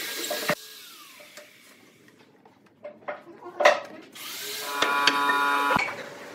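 Handling noise from steel bar clamps and a glued pine panel on a workbench: a few clicks and a sharp knock. Near the end comes a rasping, creaking stretch of about a second that stops abruptly.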